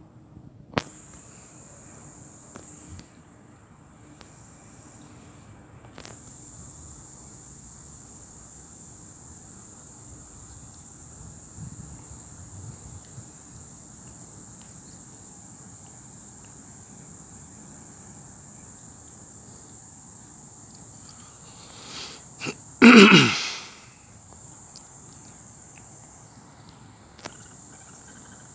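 Steady high-pitched insect chirring, weaker for a few seconds near the start. About 23 seconds in comes one loud, short burst of noise, the loudest thing heard, with two small sounds just before it.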